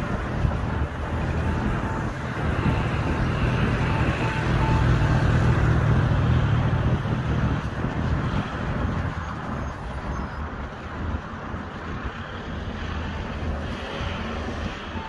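A road vehicle drives past, its engine and tyre noise swelling to a peak about five or six seconds in and then fading away against background traffic noise.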